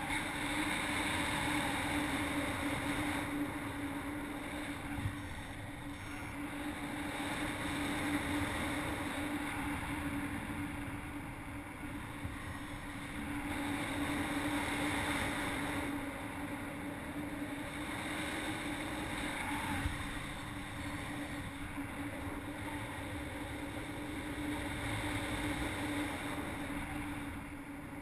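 Wind rushing over a GoPro's microphone on a paraglider in flight, a steady rush that swells and eases slowly every several seconds, with a steady low hum running underneath.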